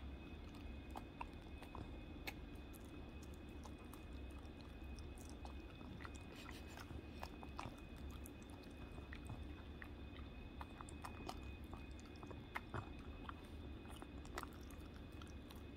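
A Shih-poo dog chewing red dragon fruit taken from a hand: faint, irregular clicks and smacks of its mouth and teeth, over a steady low hum.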